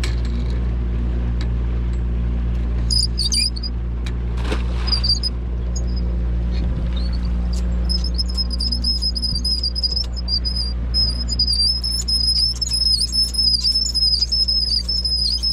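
Boat motor running steadily at trolling speed, a low even hum. A few short high chirps come early, then from about halfway a continuous high, wavering whistle with brief breaks rides over the motor.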